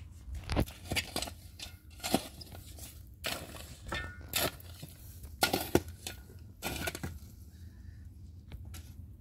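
Irregular clatter of hard objects being knocked and handled: a dozen or so sharp knocks and clinks, thinning out near the end.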